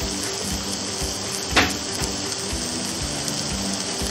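Vegetables and mushrooms sizzling steadily on the hot plates of an electric contact grill, with one sharp pop about one and a half seconds in.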